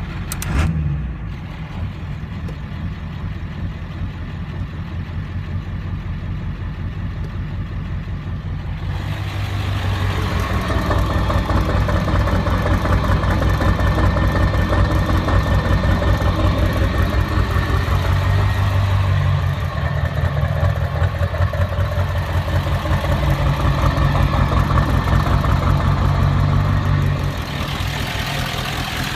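Ford 7.3 L Power Stroke turbo-diesel V8 with 238/100 injectors idling roughly on its daily tune. It grows louder and brighter from about nine seconds in, then settles back down near the end.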